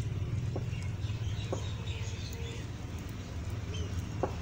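Small birds chirping faintly and intermittently over a steady low hum, with a few soft taps about half a second, a second and a half, and four seconds in.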